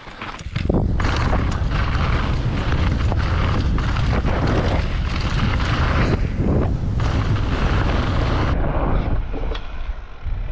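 Wind rushing over a helmet-mounted camera's microphone as a mountain bike descends fast, with the tyres rattling over rock and dirt. It sets in about half a second in and drops off about eight and a half seconds in.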